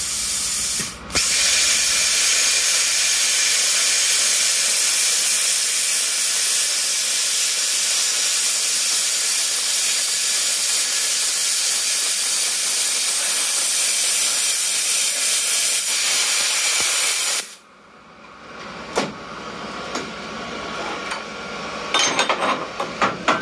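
Handheld plasma cutter cutting through steel bar stock: a loud, steady hiss of air and arc that drops out briefly about a second in, then runs unbroken for about sixteen seconds before cutting off sharply. Near the end come a few short metal clicks as the cut-off piece is handled.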